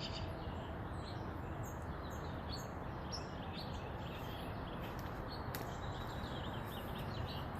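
Birds singing: many short, high chirps and song notes in quick succession, over a steady low background hum of outdoor noise.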